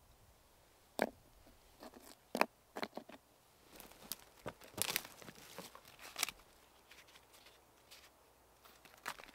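Dry twigs and fallen branches snapping and crunching underfoot in dry brush: a few sharp snaps, then a denser run of crackling and crunching, then a few light rustles and clicks near the end.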